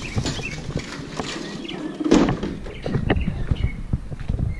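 Footsteps and handheld-camera handling as someone walks: irregular thumps and scuffs over a low rumble, the loudest about two seconds in. Small birds chirp faintly in the background.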